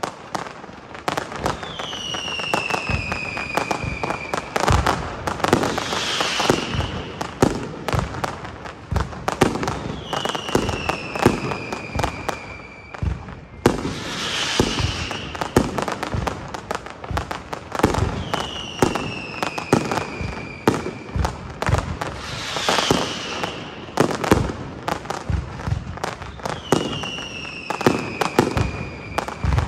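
Aerial fireworks display going off: a dense run of bangs and crackling reports, with a whistling shell that glides down in pitch for a couple of seconds about every eight seconds.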